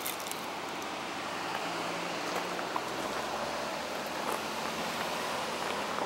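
Steady rushing of a waterfall and river, an even hiss, with a few faint clicks.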